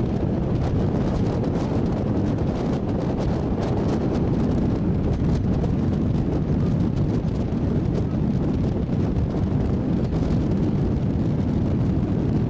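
Wind buffeting the microphone aboard a ferry boat underway, with a steady low rumble from the moving boat and many brief crackles.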